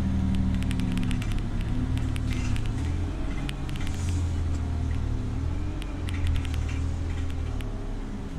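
Bus engine and drivetrain running under way, heard from inside the passenger saloon as a steady low drone, with rattling clicks from the interior fittings.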